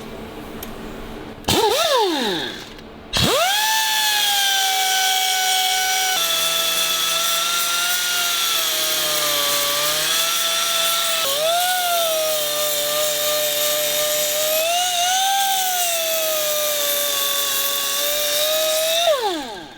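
Electric grinder dressing down a fresh weld on a steel fork brace. It is started briefly and winds down, then restarted about three seconds in and runs at a steady whine. Its pitch sags several times as the disc bites into the weld, and it is switched off and spins down near the end.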